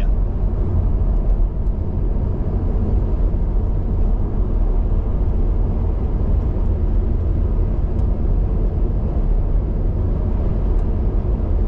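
Car driving at motorway speed, heard from inside the cabin: a steady low rumble of tyres and engine with no distinct events.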